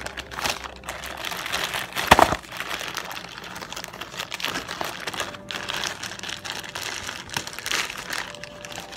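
Plastic Amazon mailing bag crinkling and rustling as it is pulled and torn open by hand. One much louder crackle comes about two seconds in.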